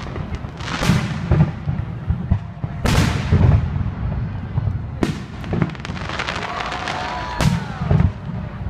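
Aerial fireworks shells bursting in quick succession, with sharp bangs and low booms and a crackle between them. The heaviest volleys come about three seconds in and again near the end.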